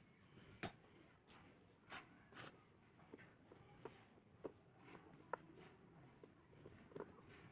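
Faint, irregular small clicks and rustles of hands handling thin wires and a small circuit board while twisting a wire joint.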